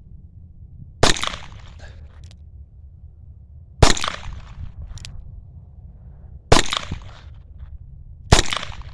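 Taurus 942 .22LR revolver fired four times in single action, a sharp crack each time with a short echoing tail, roughly two to three seconds apart. Faint lighter clicks fall between the shots.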